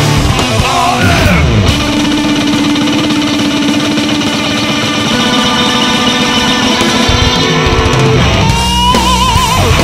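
Hard rock music led by electric guitar: a falling slide about a second in, long held notes, then a note bent upward and shaken with a wide vibrato near the end.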